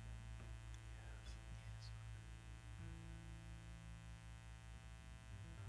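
Faint, steady electrical mains hum from the amplified sound system and instruments.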